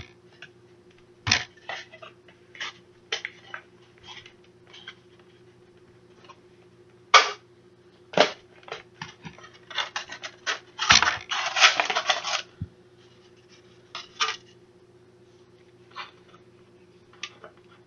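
Scattered scrapes, taps and clicks of a styrofoam insert and cardboard card box being handled and pulled apart to get at a bonus card. A longer stretch of scraping comes about eleven seconds in, over a faint steady hum.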